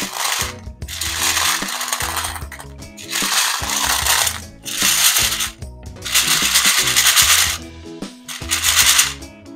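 Candy-coated M&M's chocolates clattering against each other and the container as hands stir and scoop them, in about five rattling bursts. Background music plays underneath.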